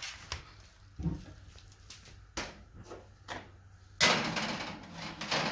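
A metal baking pan being handled and slid into an oven: a few light knocks and clicks, then a louder scraping rattle about four seconds in as the pan goes onto the oven rack.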